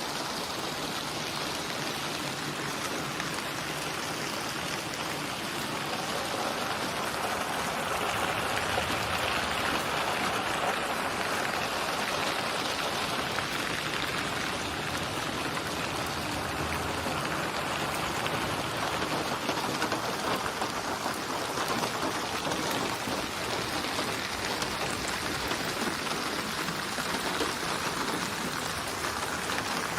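Steady rain falling, a dense even patter of raindrops on surfaces with no breaks, swelling slightly in intensity several seconds in.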